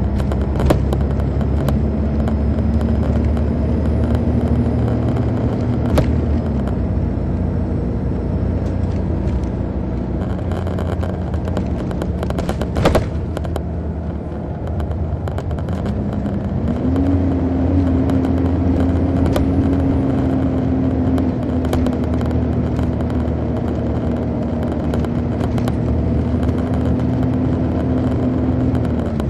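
Interior sound of an MCI D4000 coach bus under way, its Detroit Diesel Series 60 inline-six diesel running steadily from the rear. The engine note steps down about six seconds in, climbs about halfway through and holds, then falls near the end, with a couple of sharp knocks or rattles in the cabin.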